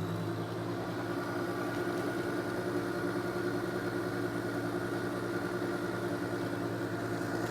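Electric beater running at a steady speed, whipping cream: an even motor hum.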